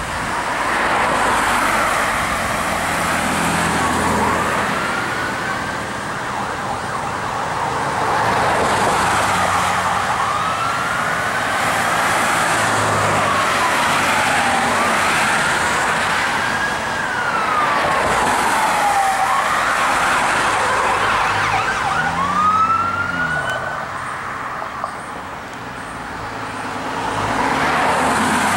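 Fire engine's siren wailing, sliding slowly up and down in pitch, with short low air-horn blasts in between, as the truck approaches on an emergency run.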